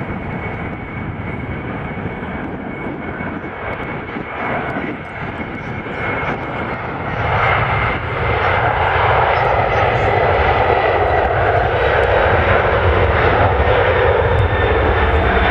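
Boeing 747-400 jet engines running during takeoff, a steady roar with a thin high whine, growing clearly louder about seven seconds in.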